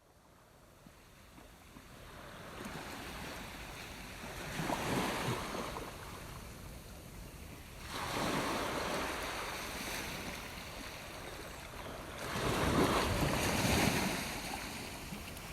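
Surf-like washes of noise fade in from silence and then swell and ebb, loudest about five, eight and thirteen seconds in, opening an experimental electronic music mix.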